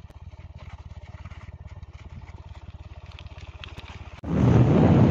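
Motorcycle engine running at low revs, a fast, even low pulsing. About four seconds in it cuts abruptly to a much louder rush of wind on the microphone with the engine underneath.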